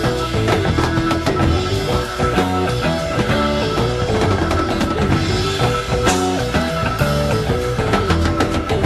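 Instrumental passage of 1970s progressive rock: a drum kit under a busy line of quick, stepping notes.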